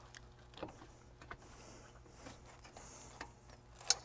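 Scattered light clicks, taps and rubbing from hands working a silicone coupler onto the intercooler pipe and handling the parts around it, the sharpest click coming near the end.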